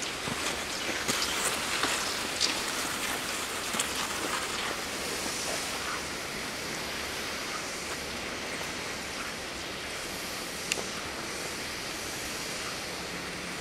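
Cross-country skis sliding over snow in a classic track: a steady hiss, with scattered light clicks and scrapes from skis and poles, mostly in the first few seconds and once more near the end.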